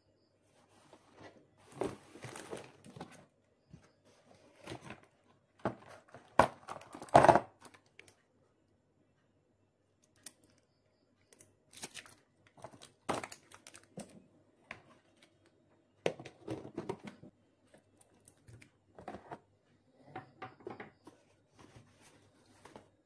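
Hands handling craft materials on a tabletop, a cardboard box, a roll of adhesive wallpaper and plastic packaging, making irregular rustling and crinkling with sharp knocks as things are picked up and set down. The loudest handling comes about seven seconds in.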